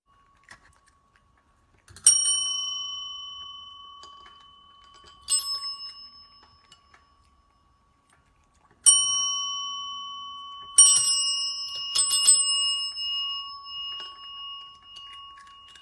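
A small metal bell struck six times at irregular intervals, two of them in quick succession near the end. Each ding rings on and fades slowly.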